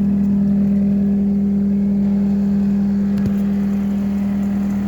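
Skid steer engine running steadily with an unchanging hum.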